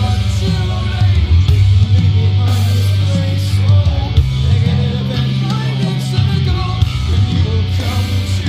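Rock music with guitar, a heavy bass line and drums hitting at a steady beat.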